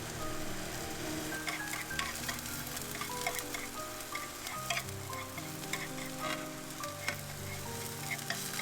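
Food sizzling and crackling in a hot pan, a steady hiss dotted with sharp pops, over soft background music of short plucked notes.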